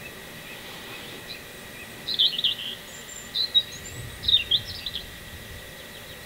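A small bird chirping in quick, high phrases, three bursts about a second apart in the middle of the stretch. A faint steady high tone runs underneath.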